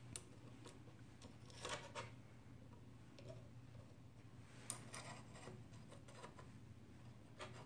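Faint clicks and light metal scrapes, a few at a time, as the aluminium support arms of a BGA rework station's circuit-board fixture are slid along and their star-knob screws loosened and adjusted, over a low steady hum.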